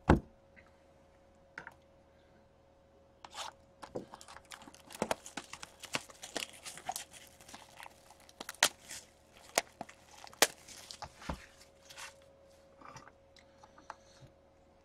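Wrapping being torn and crinkled off a box of Upper Deck Portfolio hockey cards: a fast, irregular run of crackles, tears and clicks that starts a few seconds in and dies away near the end, over a faint steady hum.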